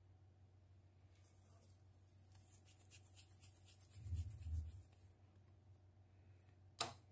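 Faint soft rubbing of yeast dough being rolled into a ball between the hands, with two dull thumps about four seconds in and a sharp click near the end.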